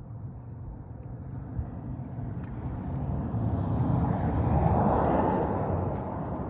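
A road vehicle passing by, its rumble building to a peak about five seconds in and then fading.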